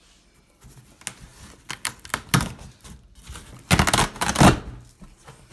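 Cardboard shipping box being torn open by hand: crackling and clicking of packing tape and cardboard in irregular bursts, loudest about four seconds in.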